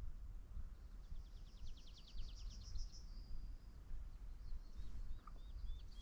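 Faint woodlark song: a fast trill of rapidly repeated high notes, then a slower series of separate notes, each falling in pitch.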